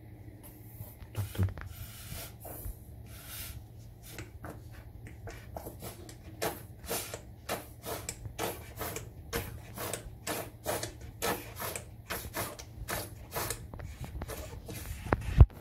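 Plastic squeeze bottle of grout being worked along tile joints: short squeezing and scraping sounds, roughly two a second, over a steady low hum. A single louder knock comes just before the end.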